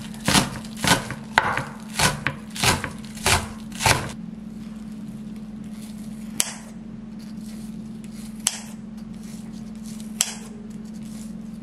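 A knife chopping on a cutting board in a steady rhythm of about two strokes a second, stopping about four seconds in, followed by a few isolated knocks. A steady low hum runs underneath.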